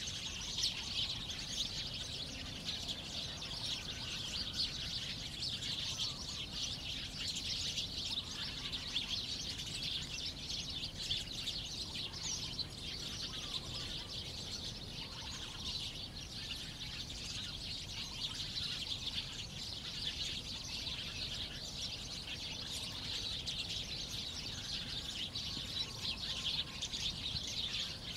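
Dense, unbroken chorus of high-pitched chirping from birds and insects, with no pauses.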